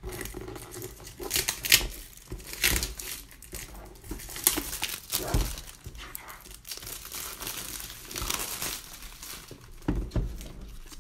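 Plastic wrapping on a product box crinkling and crackling in irregular bursts as hands handle and pull at it.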